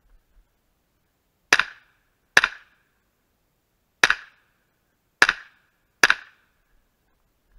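Pistol-caliber carbine firing five shots at targets: a pair, a single shot, then another pair, each pair a little under a second apart.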